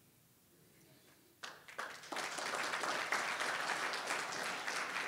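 Audience applauding: many people clapping, starting about a second and a half in after a near-quiet start and carrying on steadily.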